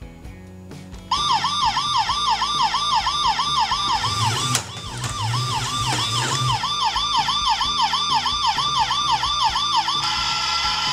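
Battery-powered toy police car's electronic siren, a rapid repeating up-and-down warble that starts about a second in and stops near the end, over background music.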